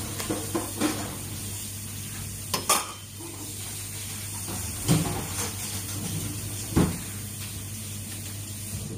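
A few sharp knocks and clatters of kitchenware, pots and utensils, the loudest about a third of the way in and two more in the second half, over a steady low hum and hiss while a pot heats on a gas burner.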